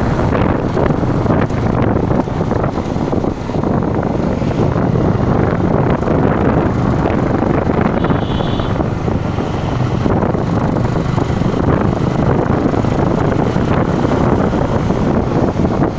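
Wind rushing over the microphone on a moving Yamaha R15 V3 motorcycle, over steady road and engine noise. A brief high tone sounds about eight seconds in.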